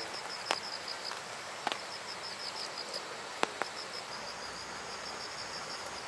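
Insect chirping in a steady, rapid train of short high pulses, with three sharp clicks spread through it.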